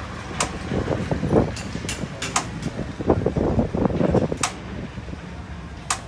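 Honda CG125's single-cylinder four-stroke engine running, its sound rising and falling unevenly, with a few sharp clicks about every two seconds.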